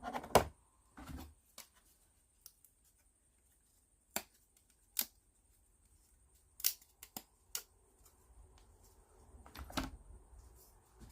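Scattered sharp clicks and light taps, about ten of them at uneven intervals, from small plywood kit pieces being handled and fitted together by hand.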